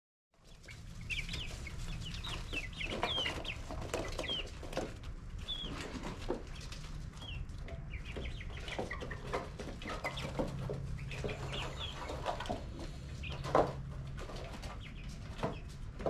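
Young Australorp and Rhode Island Red chickens in a brooder giving many short, high chirps and clucks over a steady low hum, starting a moment in, with one louder call about three-quarters through.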